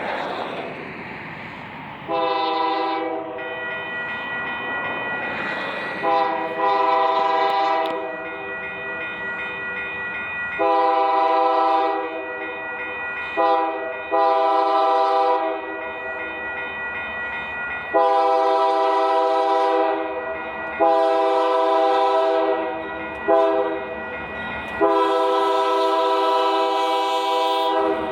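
Union Pacific GE AC44CW freight locomotive's air horn blowing the grade-crossing signal twice over, long, long, short, long, each long blast about two seconds, after a short opening blast. The train rumbles on the rails beneath the horn.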